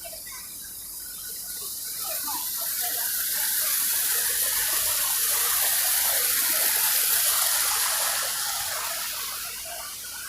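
Splashing, falling water that swells up over a couple of seconds, stays loud for several seconds, then fades, as if passed by.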